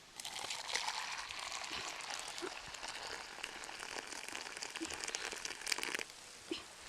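Hot water poured from a Jetboil pot into a cup: a steady splashing trickle that stops about six seconds in.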